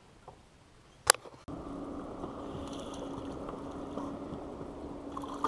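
A sharp click about a second in. Then a steady boat motor hum, with a single even tone, over the noise of wind and water, which starts abruptly.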